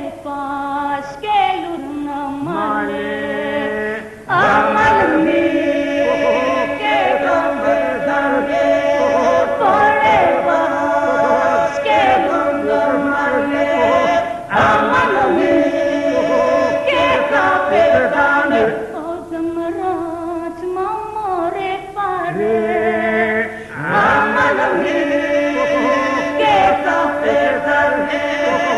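Traditional North Epirus polyphonic song sung unaccompanied by a group of voices, with a held drone under the melody lines and short breaks between phrases.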